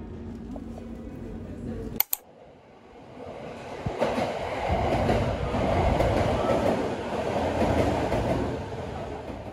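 A train running on rails: a steady rumble, a sharp click about two seconds in, then the train noise swelling loud from about four seconds in.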